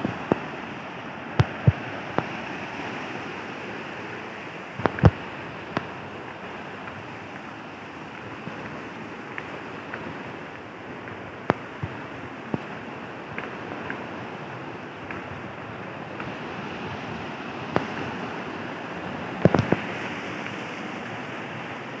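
A rocky river rushing steadily over stones and small cascades, with a few sharp knocks scattered through, the loudest about five seconds in.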